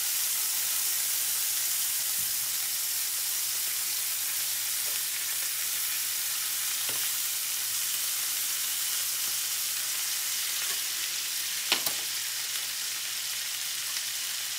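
Filet mignon steaks sizzling in hot olive oil and melting butter in a cast iron skillet, a steady hiss. Two quick sharp clicks sound near the end.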